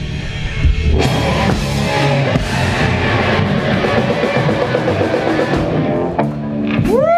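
Post-hardcore rock band playing live, with guitars and a drum kit. A single rising tone slides in near the end.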